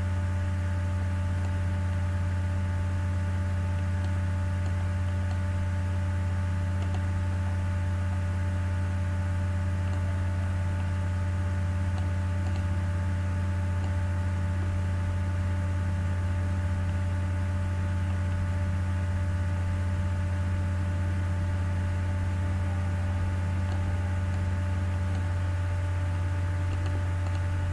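Steady electrical hum with a low drone and several thin constant tones over a hiss, no speech; one of the low tones fades near the end.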